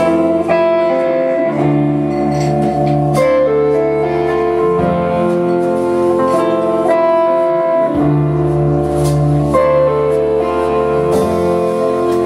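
A band plays an instrumental passage between sung verses: guitar with held, sustained chords over a bass line, without singing.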